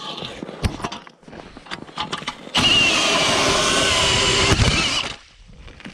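A drill-powered ice auger boring through lake ice: a few handling clicks, then about two and a half seconds of steady motor whine and cutting that starts abruptly about two and a half seconds in and stops abruptly just after five seconds.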